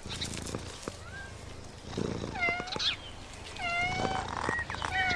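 Domestic cat meowing twice, two drawn-out calls about a second apart, with short soft clicks in between.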